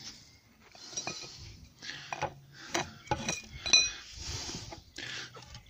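A metal trowel scraping and clinking, several sharp metallic clinks with a short ring, as cement is packed around a timber newel post in its hole.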